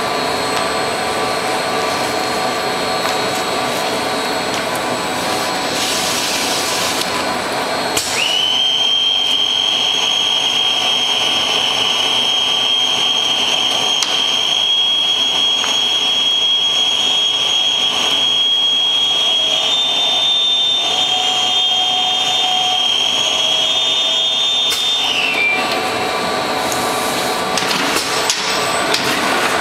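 Steady rushing hum of the vacuum blower behind a manual case maker's perforated suction table, with a high steady whine coming in about eight seconds in and cutting off about four seconds before the end.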